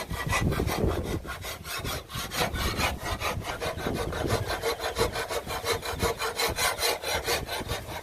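Rapid, even back-and-forth scraping strokes of hand work on a knife blade, about five to six strokes a second, with a faint ringing tone through the middle.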